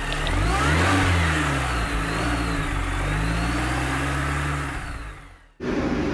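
Car engine revving sound effect: the engine note rises and falls back in pitch, then fades out. It breaks off into steady workshop background noise just before the end.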